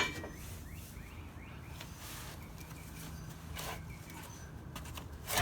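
Faint outdoor background with small birds chirping now and then over a low steady hum, and two short knocks in the second half.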